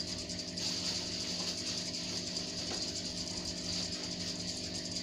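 Steady mechanical hum of an aquarium's submersible water pump with a hiss of bubbling water from the aeration stream.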